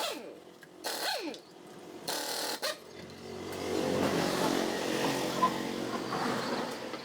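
A power tool or machine motor runs for about four seconds, building up and then fading away, after a few shorter mechanical sounds.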